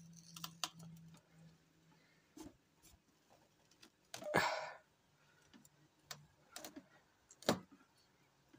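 Chef's knife working into a hard, whole spaghetti squash on a wooden cutting board: scattered clicks and small knocks. There is a louder noisy burst about four seconds in and a sharp knock a few seconds later.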